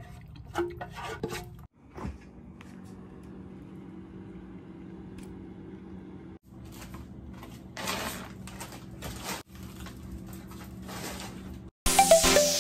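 A spatula scraping the inside of a bread maker pan, then a faint steady hum with plastic-wrapped frozen food packages rustling as they are handled in an open freezer. Loud electronic dance music starts near the end.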